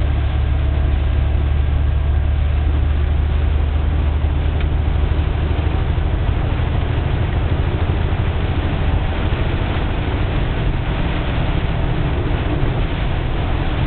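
Very heavy rain falling in a steady downpour, with a deep continuous rumble underneath.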